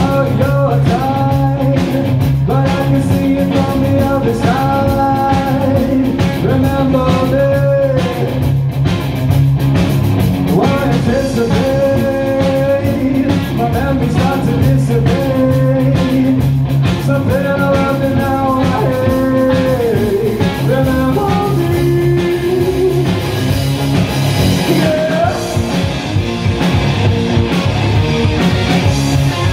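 Live rock song played loud: a male voice singing over electric guitar and a drum kit. About three-quarters of the way through, the singing stops and the guitar and cymbals carry on.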